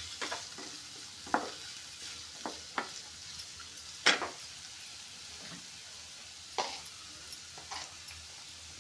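Chopped carrots, beans and onion sizzling in oil in a stainless steel kadai, stirred with a wooden spatula that scrapes and knocks against the pan several times, the loudest knock about four seconds in.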